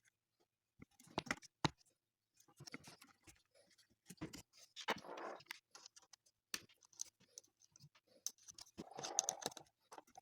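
Scattered clicks, knocks and short scrapes of bread maker parts being handled as the new drive belt is fitted and the machine is put back together. The sharpest knocks come just over a second in.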